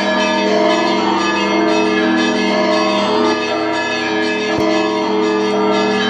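Russian Orthodox church bells rung by ropes from a belfry: many bells of different pitches struck together in a continuous peal, with a low ringing tone held under the higher bells.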